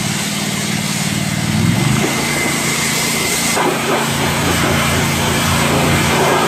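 Pressure washer running while its foam cannon sprays detergent foam onto a truck: a steady motor hum under a continuous spray hiss, the hum shifting in pitch about two seconds in.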